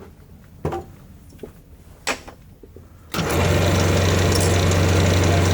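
A few light clicks and knocks, then about three seconds in a wood lathe is switched on and its motor runs steadily with a low hum, spinning the desk leg held in a four-jaw chuck.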